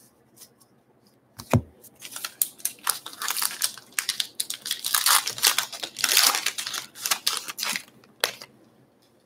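Trading-card pack wrapper being torn open and crinkled by hand, a dense crackling rustle lasting several seconds. A single knock comes about a second and a half in.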